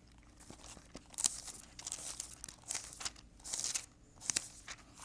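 Thin Bible pages being turned by hand: a series of quick paper rustles, about half a dozen, some close together.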